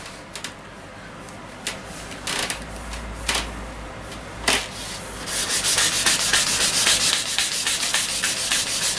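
Sandpaper rubbed by hand up and down a wooden snooker cue shaft. A few scattered rubs and taps come first, then from about five seconds in a steady run of quick back-and-forth strokes. The paper is clogged and barely taking any wood off.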